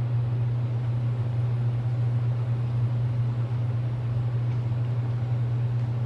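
A steady low hum that holds at one level throughout.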